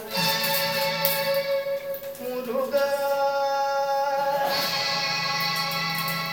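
Carnatic film song: a singer holds long, steady notes over a low drone and instrumental accompaniment, moving to a new pitch twice.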